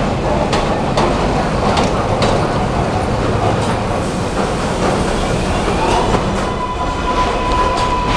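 Diesel subway work train and an R142A subway train running past on elevated tracks: a heavy rumble, with wheels clacking over rail joints. A steady high whine comes in about six seconds in.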